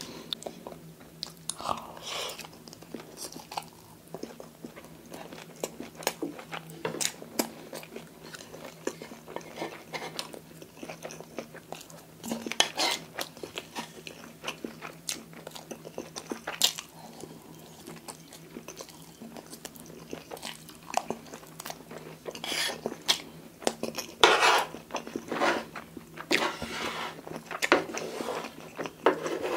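Close-miked chewing of cream-sauced fettuccine and crisp fried bacon: wet, sticky mouth sounds with many irregular crunchy clicks. Now and then a plastic spoon and a steel fork scrape and tap on a wooden plate.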